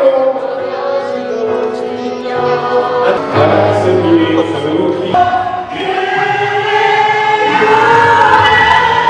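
A group of fans singing a song together in chorus, held notes from many voices. The singing cuts abruptly to a different passage about five seconds in.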